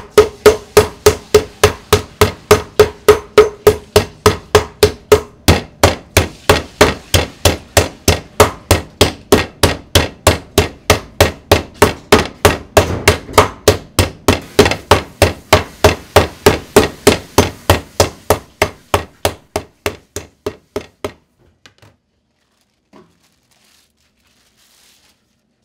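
Metal meat mallet pounding pork slices flat through plastic wrap on a wooden board: a steady run of blows, about three a second, that stops about 21 seconds in. After that there is only faint handling of the plastic wrap.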